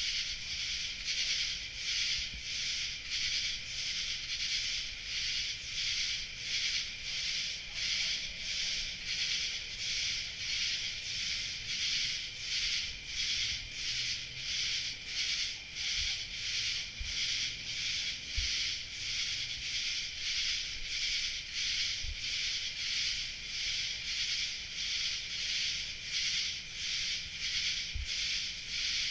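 Chorus of night insects singing in a dense, high-pitched, pulsing wall of sound that swells and falls evenly, nearly twice a second.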